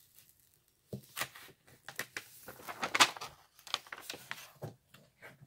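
Paper rustling and crinkling as the printed cover sheet is peeled off a diamond painting canvas and folded back, in short irregular bursts. The loudest crinkle comes about three seconds in.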